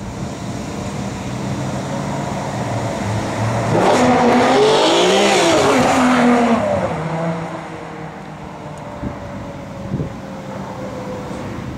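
Ferrari 599 GTO's 6.0-litre V12 accelerating hard past close by. It builds over the first few seconds, is loudest for about three seconds with the engine note rising and falling, then fades as the car pulls away.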